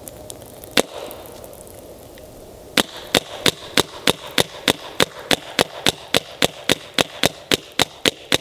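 Planet Eclipse Etha 2 paintball marker firing with water in it instead of paint, unlubricated and in below-freezing cold. One lone shot about a second in, then from about three seconds in a steady string of sharp cracks at roughly three shots a second.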